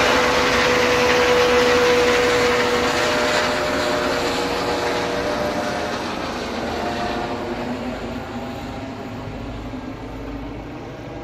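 ADAC rescue helicopter flying away after take-off, its rotor and turbine noise fading steadily. A steady whine stands out over the rotor noise for the first few seconds before fading.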